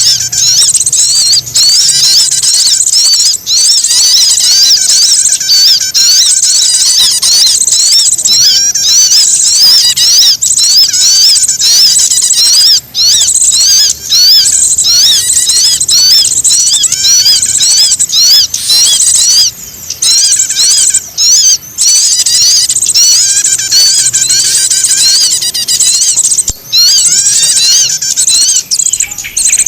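Dense, unbroken chatter of many small birds: rapid high chirps and squeaky calls overlapping without pause. It is a noisy, agitated small-bird chorus of the kind played as a lure call to draw small birds in.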